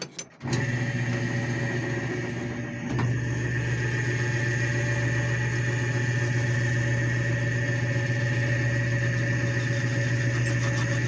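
Metal lathe starting up: a few clicks, then the motor and spindle running with a steady hum and a high whine. A little under three seconds in the sound steps up louder and then runs on evenly.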